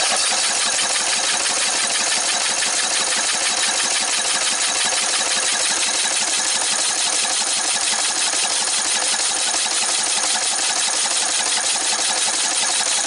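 A 14.5 hp Briggs & Stratton lawn-tractor engine being turned over by its electric starter, cranking steadily without catching, with its fuel line off the carburetor; the line does not prime, which points to a fuel-supply restriction that the owner suspects is a collapsed fuel line. The cranking cuts off abruptly.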